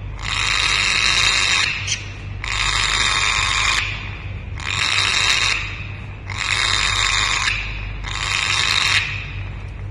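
African grey parrot making a run of five hissing, snore-like calls, each about a second long with short pauses between.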